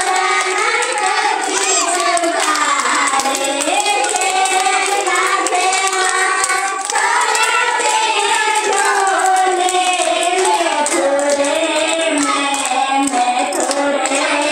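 A group of women and children singing a devotional song together, with hand clapping keeping time.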